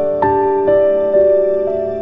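Slow, gentle instrumental background music: single keyboard-like notes struck about twice a second over sustained lower chords.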